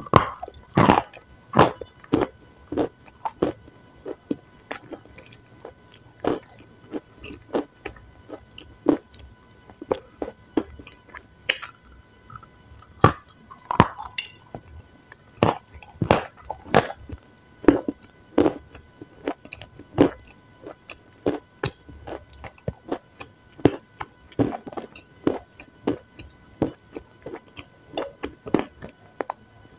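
Close-miked eating sounds: biting into and chewing crunchy white chunks coated in black, with a sharp crunch or click every second or so.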